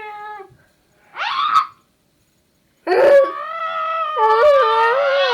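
A girl making silly high-pitched vocal noises: a short wail that trails off, a brief rising squeal about a second in, then after a pause a long wavering howl-like wail.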